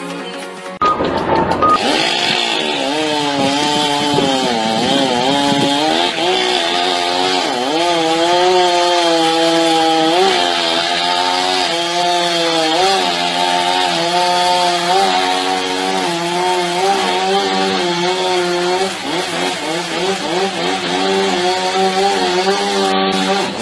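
Chainsaw running, its engine pitch wavering up and down as it works. It starts abruptly about a second in.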